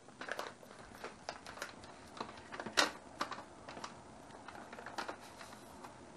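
Irregular crinkling and sharp clicks of a plastic sugar pouch being opened and handled with gloved hands, with one louder snap a little under halfway through.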